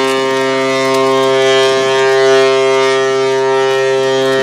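Ship's horn sounding one loud, long, steady blast.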